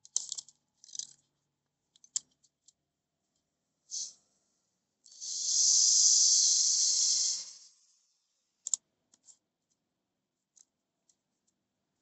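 Electric drill boring into the steel jaw of a pair of slip-joint pliers, one steady run of about two and a half seconds a little past the middle. Before it come short bursts and clicks of the drill and pliers being handled, and a few light clicks follow.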